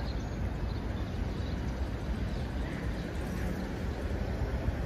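Outdoor city street ambience: a steady low rumble with a few faint high chirps.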